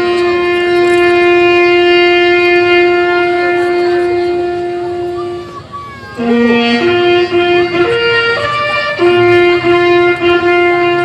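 A bugle playing a slow ceremonial call of long held notes: a low note rising to one held for about five seconds, then after a brief break the low note again, a few short repeated notes, a higher note and another long hold, like a salute to fallen soldiers.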